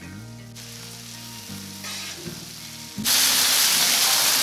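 Thin-sliced steak and onions sizzling on a Blackstone flat-top griddle, faint at first, then much louder about three seconds in. Background music with steady tones plays underneath.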